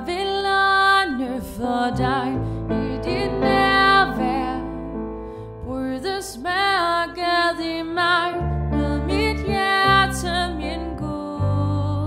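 Slow Danish worship song played by a band: female voices sing the melody with vibrato over piano chords and long, sustained bass notes.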